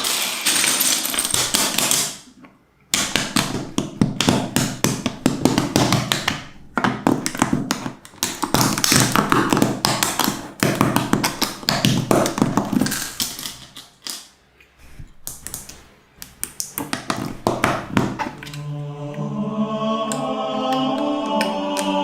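Rapid clicking and snapping of plastic construction bricks, many small taps in quick succession, with two brief lulls. Near the end a choral chant swells in.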